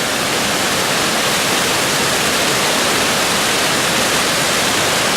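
Dettifoss waterfall, a glacial river plunging over the falls, heard as a loud, unbroken rush of falling water.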